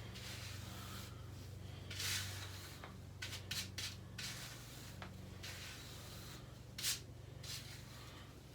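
A comb or brush drawn through a synthetic wig's hair in a series of short, irregular strokes, the sharpest a little before the end, over a steady low electrical hum.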